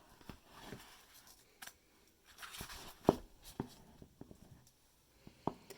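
Faint handling of a picture book, most likely its page being turned: soft paper rustling with a few small sharp clicks.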